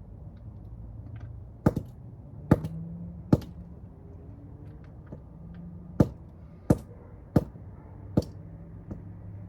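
Seven sharp, hard strikes, three close together and then four more after a pause, as a capacitor-like component is being broken open to see what is inside.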